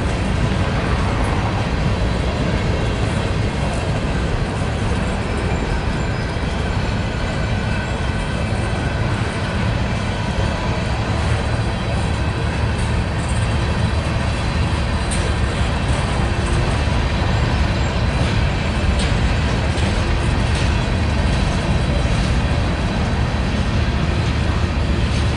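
Freight train cars rolling past: a steady rumble of steel wheels on rail as a string of coal hoppers and covered hoppers goes by, with a few faint clicks.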